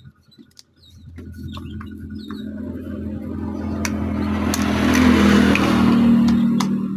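An engine running at a steady pitch, swelling gradually to its loudest about five seconds in and then easing off.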